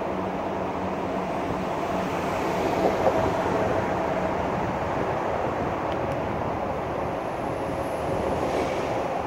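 Road traffic on a bridge: a steady rushing noise, with a van driving past that is loudest about three seconds in.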